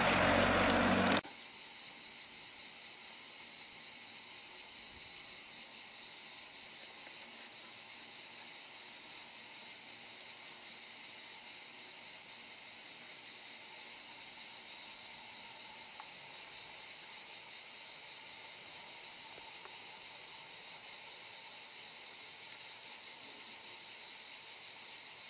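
A car drives past close by for about the first second. After it, a steady, high-pitched insect chorus keeps up without a break.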